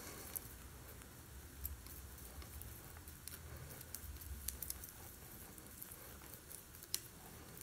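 Palette knife working thick paint on a palette: faint, irregular soft clicks and squishes as the paint is mixed.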